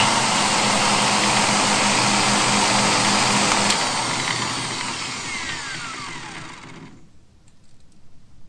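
Angle grinder spinning a disc mounted on its spindle, with a steady loud motor whir. About four seconds in it is switched off, and it spins down with a falling whine until it stops about seven seconds in.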